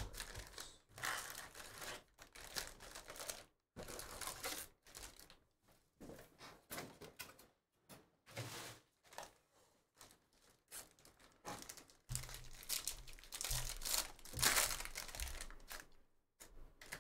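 Foil wrappers of Bowman Draft trading-card packs crinkling and tearing in irregular bursts as the packs are handled, stacked and opened. A few soft knocks come near the end.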